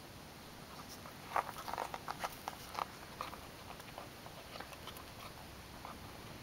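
A puppy mouthing and biting a rubber basketball: a quick run of short scraping clicks from about one to three seconds in, then a few fainter ones.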